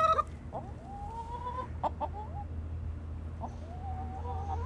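A flock of chickens clucking and calling. Several drawn-out calls rise in pitch, and a new long call begins near the end.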